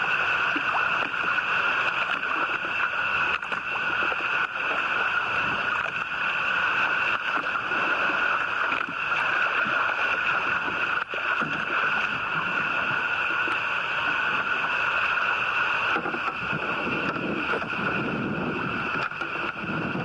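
Choppy water sloshing and gurgling against the side of a small boat, over a steady high-pitched hum.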